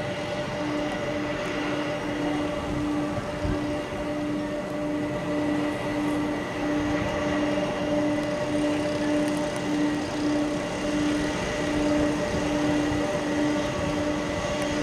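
Boeing 747-400's four jet engines running at taxi power: a steady whine over a broad rushing drone, with a low tone that pulses about one and a half times a second.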